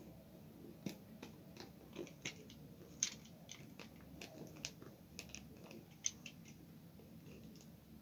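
Faint, irregular crinkling and small clicks of gift wrapping paper and tape being handled and carefully peeled open, with a sharper crackle about three seconds in and another about six seconds in.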